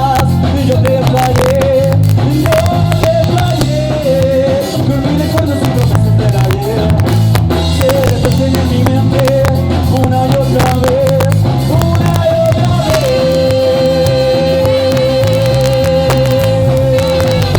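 Live ska band playing loud, with a steady bass and drum beat under a wavering lead melody. About two-thirds through, the lead settles on one long held note with vibrato.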